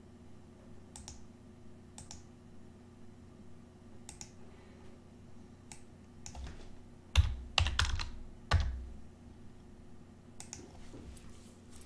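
Typing on a computer keyboard with mouse clicks: a few scattered clicks, then a quick cluster of louder keystrokes a little past the middle.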